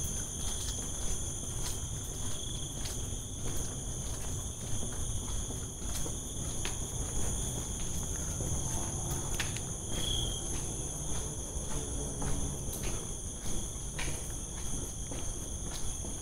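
Chorus of night insects trilling steadily in several high pitches, with scattered soft clicks and knocks.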